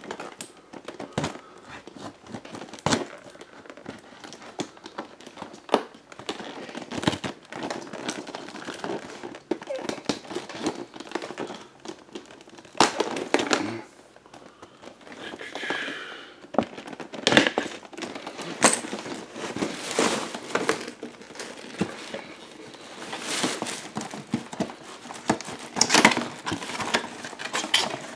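Tissue paper and cardboard packaging crinkling and rustling as a box is unpacked by hand, with irregular crackles and light knocks throughout.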